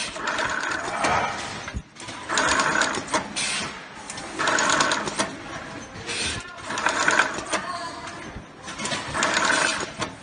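Automotive wire-harness joint taping machine cycling: about five times its motor runs for roughly a second as it spins tape around the wire joint, with short quieter pauses between cycles while the next bundle is loaded.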